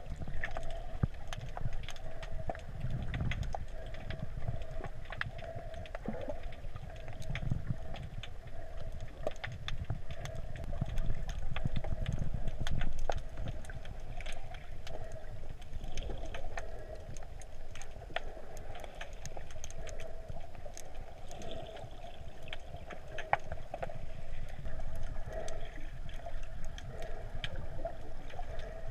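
Muffled underwater sound heard through a GoPro's waterproof housing: low surging rumble of moving sea water, a steady wavering hum, and many scattered sharp clicks and crackles.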